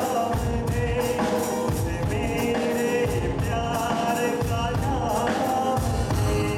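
Live Bollywood song: a male vocalist singing into a microphone over an amplified band, with a steady drum beat.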